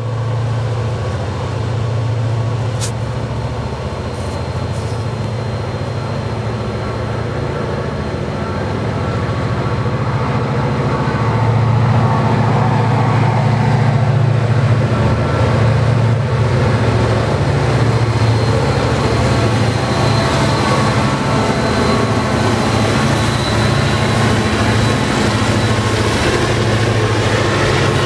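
Pair of EMD SD40-2 diesel-electric locomotives, each with a 16-cylinder two-stroke 645 engine, running past with a steady low drone that grows louder about eleven seconds in as they come close. Near the end the covered hopper cars behind them are rolling by on the rails.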